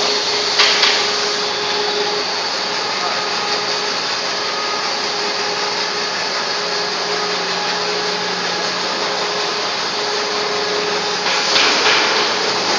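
Corrugated pipe production machinery running: a loud, steady mechanical hiss with a low hum from its electric motor and belt drive. A few knocks come about a second in and again near the end.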